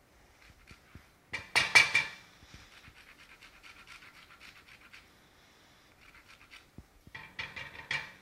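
Ginger slices crackling faintly in hot oil in a stainless steel wok. Lemon zest is grated in quick scratchy strokes, loudest about a second in and again near the end.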